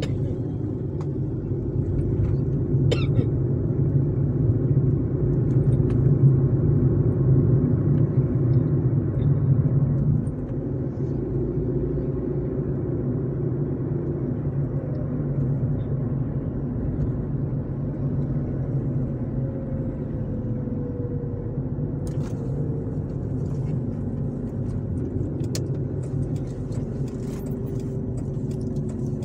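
A car driving along a road, heard from inside the cabin: a steady rumble of engine and tyres that grows louder over the first ten seconds, then drops suddenly and holds steady.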